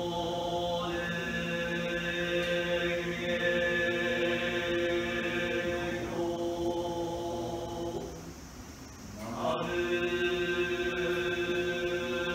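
Buddhist ceremonial music of steady held tones, several pitches sounding together like a drone, with a higher layer of tones coming and going. It fades out about eight seconds in and returns a second and a half later.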